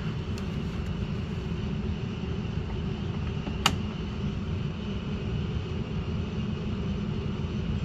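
Coleman rooftop RV air conditioners running on fan only, a steady low hum, with a single sharp click about three and a half seconds in. The time delay relay is still holding the compressors off.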